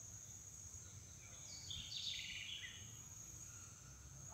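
Faint background ambience: a steady high-pitched insect trill, with a bird giving a brief run of falling chirps about two seconds in.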